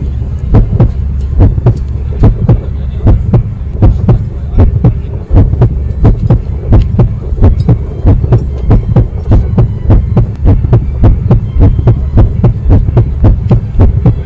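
Heartbeat sound effect: steady low thumps about three to four a second over a low hum.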